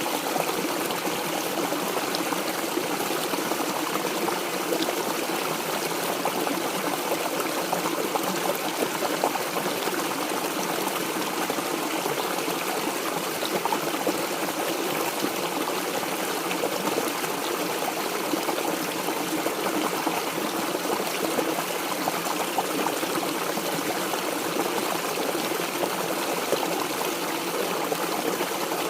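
Water running steadily in a mountain stream, an even, continuous rush.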